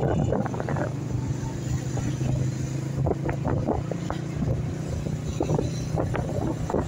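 Honda CG 125 motorcycle's single-cylinder four-stroke engine running steadily while riding, a low even drone. A few short sounds ride over it around the middle.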